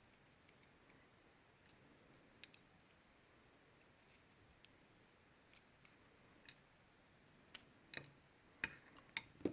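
Quiet, scattered small metal clicks from handling a disassembled Schlage Everest lock cylinder and its pin tumblers, with a few sharper clicks close together in the last two seconds.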